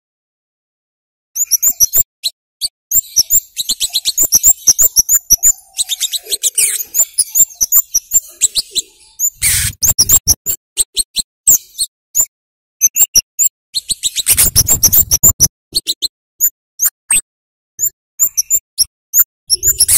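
Scarlet-headed flowerpecker (kemade) giving rapid runs of short, high, sharp 'cit' chirps, starting about a second in, densest in the first half and thinning later. Two louder noisy bursts break in, one near the middle and one about three-quarters through.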